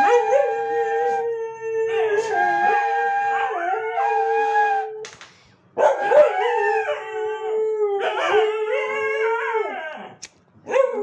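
A dog howling along with a bamboo bansuri flute playing long held notes, the howls and the flute overlapping. Both break off briefly about five seconds in and again near the end.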